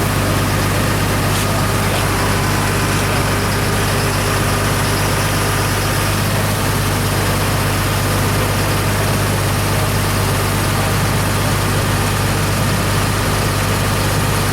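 Engine running steadily at idle, a constant low hum with no change in speed.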